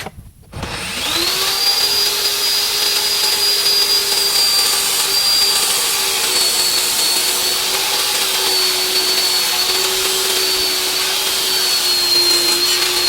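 Table saw switched on: its motor spins up in about a second to a steady high whine and keeps running, the pitch dipping slightly near the end.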